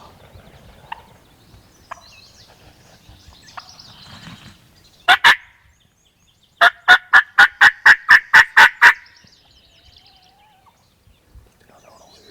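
Turkey calling at close range: two loud notes, then after a short gap a rapid, even run of about ten loud notes, about four a second. Faint small-bird chirps come before it.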